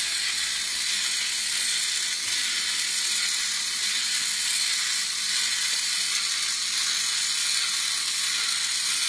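Small electric motor and gear train of a remote-control Liger Zero walking model running steadily as it walks, a constant even whir with no breaks.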